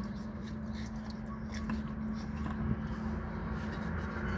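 Steady low machinery hum with one constant tone, with a few faint clicks and scrapes as a diesel fuel filter canister is spun off by hand.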